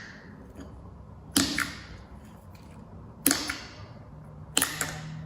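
Knife slicing through kinetic sand three times, each cut a sharp crunch that fades over about half a second.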